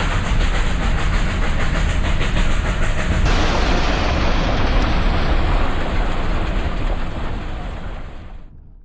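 Train running with a fast rhythmic clatter that gives way to a broader, steadier rush about three seconds in, then fades out near the end.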